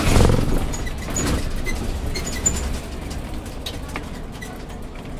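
RATP city bus heard from the driver's cab: the bus's steady low rumble with scattered light rattles and clicks. It is loudest in the first second, then eases off.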